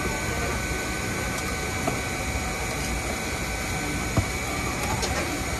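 Countertop blender motor running steadily, blending fruit into juice, with a steady high whine over the motor noise.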